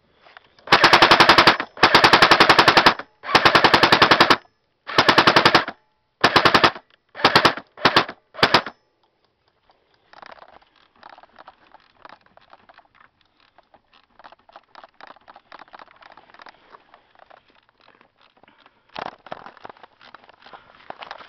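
Airsoft gun firing full-auto in about eight short bursts of rapid clicking shots over the first nine seconds. After a pause, faint scattered ticking and rustling follow.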